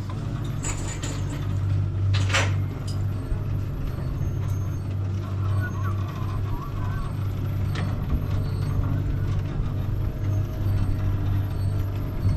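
A motor running steadily with a low, even hum. A short hiss comes about two seconds in.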